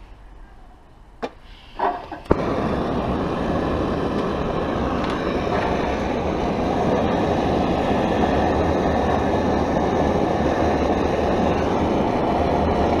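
Primus OmniLite Ti gas stove burner lighting with a sharp pop about two seconds in, after a few small clicks, then running with a steady rushing roar on butane/propane. The owner thinks the flame sounds smothered, which he puts down to the pot sitting low on the pot stand.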